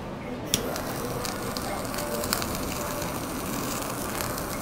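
Handheld kitchen blowtorch clicking alight about half a second in, then burning with a steady hissing flame as it sears raw sea bream slices on rice.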